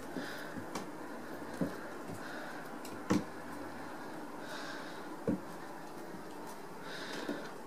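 Cat pouncing and batting on a wooden floor: a few soft thumps and scuffs from its paws and body, the loudest about three seconds in.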